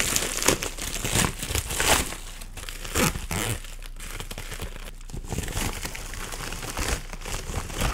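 FedEx plastic mailer bag being torn open and handled, crinkling and rustling in the hands with irregular tearing crackles.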